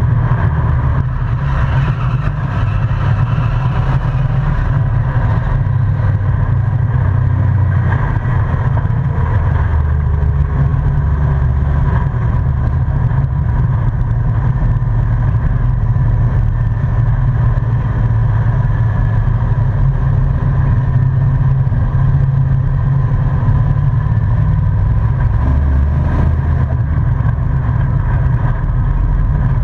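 Race truck's engine heard from inside its stripped, roll-caged cab while lapping an oval, running loud and steady, with its pitch shifting a few times as the throttle changes.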